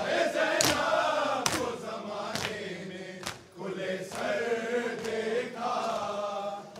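A group of men chanting a noha lament together, held and sliding vowels with a short break about halfway. In the first half, sharp slaps fall in time about once a second: men beating their chests (matam) to the lament.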